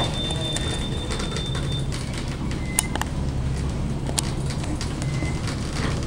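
Montgomery traction elevator car in motion: a steady low rumble and hum of the ride, with a thin high whine that stops about two seconds in and a few sharp clicks a little later.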